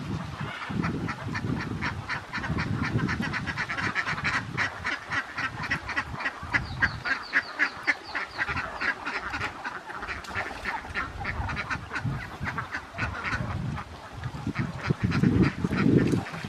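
A large flock of domestic ducks quacking continuously, many calls overlapping in a rapid chatter. A low rumbling noise runs underneath and swells near the end.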